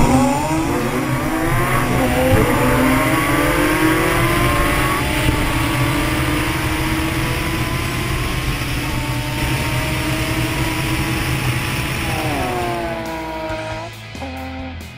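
Porsche Cayman R race cars' 3.8-litre flat-six engines at full throttle, the pitch climbing repeatedly through the gears, then dropping sharply as the drivers lift and downshift. Near the end the sound turns quieter and more distant.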